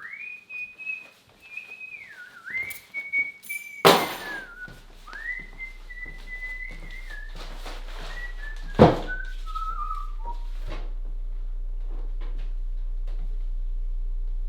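A person whistling a slow tune of long held notes that slide downward, fading out about ten seconds in. Two sharp knocks cut in, about four and nine seconds in, and a low steady hum comes in after the first knock and slowly grows louder.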